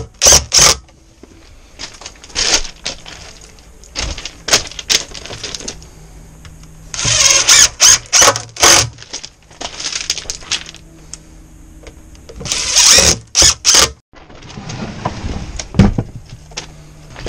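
DeWalt cordless impact driver driving screws with fender washers through a plastic garbage can into a 2x4, in three short bursts of rapid hammering, at the start, about seven seconds in and about thirteen seconds in. Scattered knocks between the bursts, and a thud near the end.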